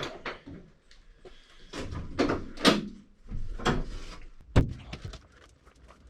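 A series of knocks and scraping thumps, about six in all, from insulation being pressed and fitted against the inner walls of a VW Caddy Maxi van's bare metal load area. The loudest come near the start and a little past halfway.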